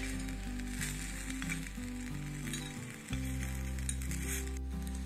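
Small steel pot sizzling as grated raw mango is fried in oil with tempered mustard seeds, a steel spoon stirring and lightly scraping the pot. Background music plays underneath.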